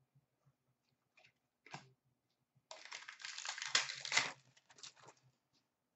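Plastic trading-card pack wrapper crinkling and tearing for about a second and a half, starting near the middle, with a few light clicks of cards being handled before and after.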